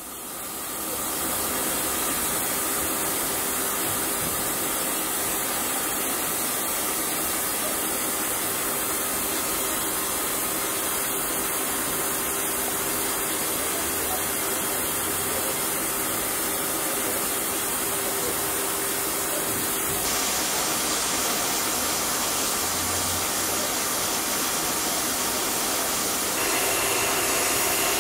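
ÖBB class 298 narrow-gauge steam locomotive letting off steam in a steady, loud hiss. The hiss fades in over the first second or so and grows fuller and brighter about two-thirds of the way through.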